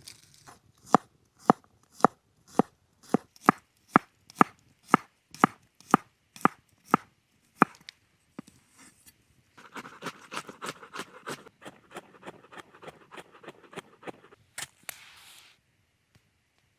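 Knife chopping on a cutting board: about fourteen sharp, evenly spaced strokes, roughly two a second, stopping about halfway through. Then comes a few seconds of softer, quicker scraping.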